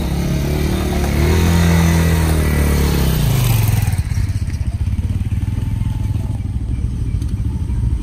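Small motorcycle engine revving up under load as the bike is ridden up a plank ramp onto a wooden boat. The revs drop about three and a half seconds in, and a lower, steady engine sound runs on.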